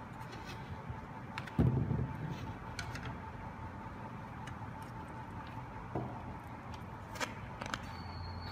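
Loudspeaker drivers being handled and set down on a table: a dull thump about a second and a half in and a few light clicks and knocks, over a faint steady whine.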